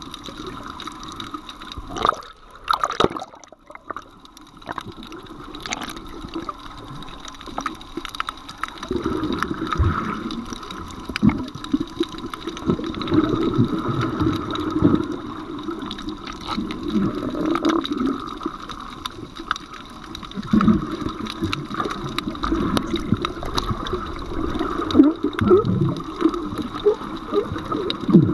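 Water sloshing and bubbling, heard from underwater, with scattered clicks and crackles throughout.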